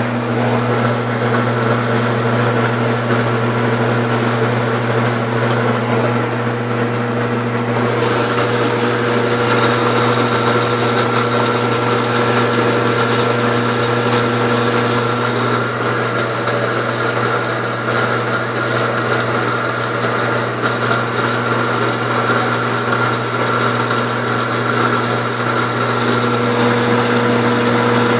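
Consul Cargo 8 kg (CWL08) top-loading washing machine running through a wash with turbo agitation: a loud, steady motor hum with a few constant tones over it.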